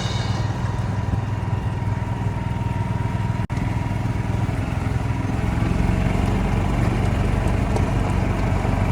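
Golf cart's small engine running steadily while driving, a low drone with road and wind noise. The sound cuts out for an instant about three and a half seconds in.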